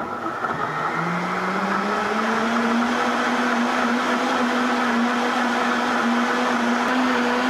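High-powered countertop blender starting on high speed and blending a nut-milk mixture. Its motor rises in pitch over the first couple of seconds as it comes up to speed, then runs steadily.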